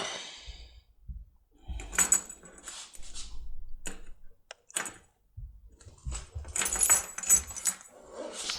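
Small metal tool parts clinking and jingling as they are handled, in scattered short bursts that are busiest near the end.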